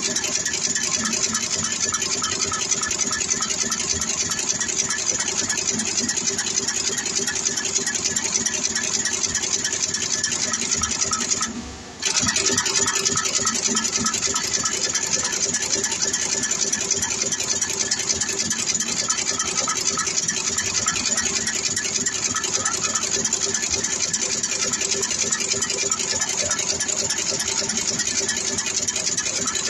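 Automatic radial LED insertion machine running, a constant mechanical hum with fast, even clatter as the head inserts LEDs into round circuit boards. The sound cuts out for a moment about twelve seconds in.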